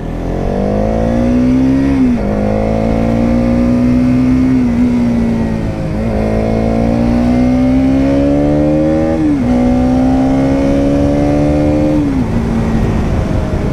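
Bajaj Pulsar NS200's single-cylinder engine pulling hard through the gears: the revs climb and then drop sharply at each upshift, four times, then run steadily near the end.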